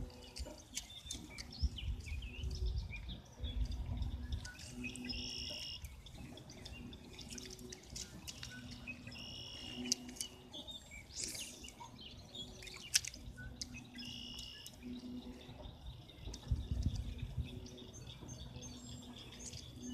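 Songbirds singing, one short high phrase repeated about every four to five seconds, with scattered faint clicks and a couple of low rumbles.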